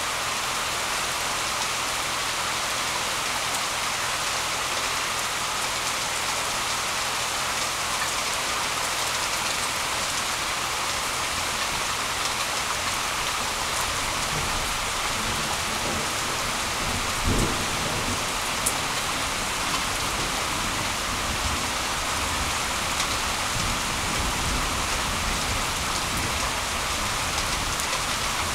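Heavy rain falling steadily on grass, leaves and pavement. Low rumbling comes in about halfway through, with one brief thump a few seconds later.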